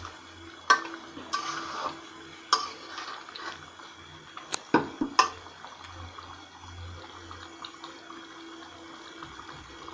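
Metal spatula stirring a thick meat curry in a metal pot, the wet gravy squelching, with several sharp clinks of the spatula against the pot in the first half, over a steady low hum.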